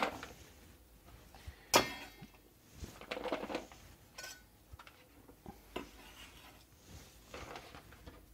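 Chef's knife knocking and scraping against a plastic tub and a wooden cutting board as chopped vegetables are swept into the tub. A sharp knock comes at the start and another about two seconds in with a brief ring, then a short scrape and light taps as the last pieces are gathered.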